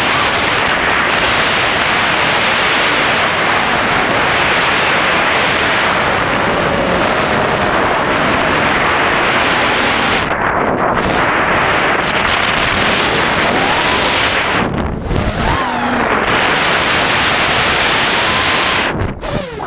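A 5-inch FPV quadcopter's motors and propellers, loud and heavily wind-blown on the onboard GoPro Hero3 microphone, with a faint whine that rises and falls in pitch. The noise drops away briefly three times: about ten seconds in, about fifteen seconds in, and near the end.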